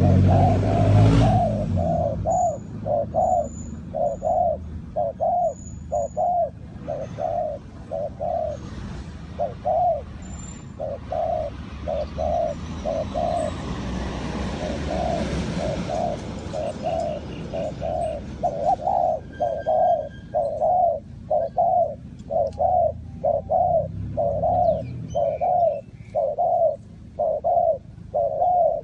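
Spotted dove cooing: a long run of low coos repeating about twice a second, with a few thin, high chirps from small birds. A brief whooshing noise comes right at the start.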